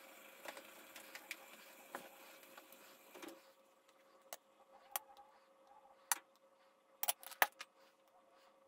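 Faint soft sounds of whipped cream being spooned and spread over a milk-soaked sponge cake, then a handful of sharp clicks from the spoon and silicone spatula knocking against the dishes in the second half.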